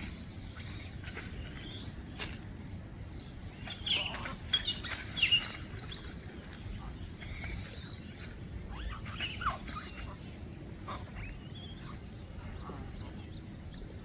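High-pitched animal calls: wavering chirps and squeals sliding in pitch, with a loud cluster of falling squeals about four to five seconds in and scattered calls after.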